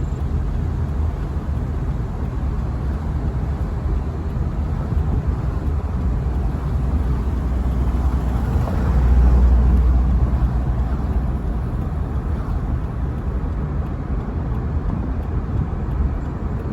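Fast-running floodwater rushing steadily, with a deep low rumble that swells for a couple of seconds about halfway through.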